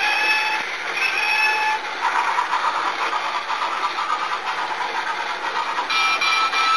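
Toy train and motorized toy roller coaster running together: a steady, busy whirring clatter of small motors and plastic cars on track. Two short held electronic tones sound in the first two seconds, and another held tone comes about six seconds in.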